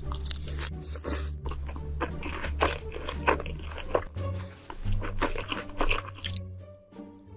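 Close-miked crunching bites and chewing of crisp food, a string of sharp crunches, over background music with a steady bass line.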